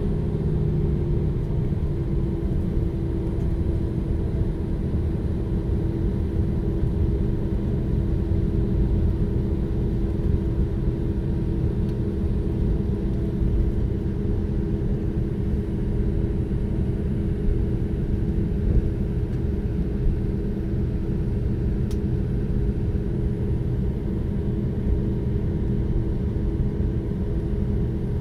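Cabin noise of an Airbus A319 taxiing with its IAE V2500 jet engines at idle thrust: a steady low rumble with a constant hum, no spool-up.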